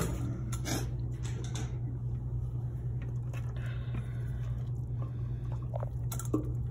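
Rubber spatula scraping a thick, chunky sun-dried tomato and roasted garlic spread out of a clear plastic Robot Coupe food processor bowl into a stainless steel bowl, with a few light knocks in the first second or so. A steady low hum runs underneath.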